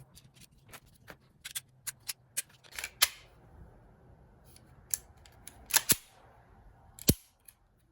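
Walther P22 .22 LR pistol's action being worked with a rebuilt snap cap loaded, making a string of sharp metallic clicks. The loudest is about three seconds in, there is a close pair near six seconds, and one more comes near seven seconds.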